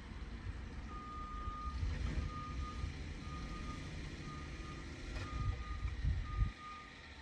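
Engine cooling fans running on high speed under scan-tool active-test command, heard from inside the cabin as a low rush that cuts off about six and a half seconds in. An electronic beep repeats about once a second over it.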